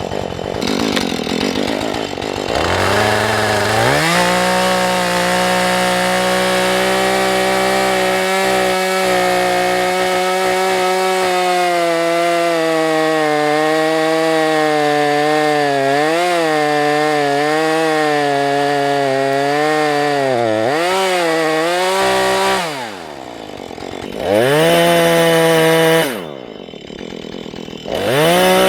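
Husqvarna 435 two-stroke chainsaw revving up from idle and running at full throttle through a cut for nearly twenty seconds, its pitch wavering as the chain loads in the wood. It then drops back to idle, revs briefly, idles again and revs up once more near the end.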